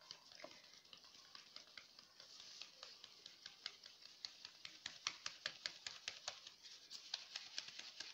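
Faint quick tapping and rustling of a hand-shaken flour sieve as flour sifts through the mesh. The taps become more regular in the second half, about five a second.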